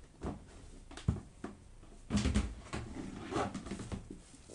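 Irregular light clicks and knocks of tools and laptop parts being handled on a work surface, with a busier cluster about two seconds in.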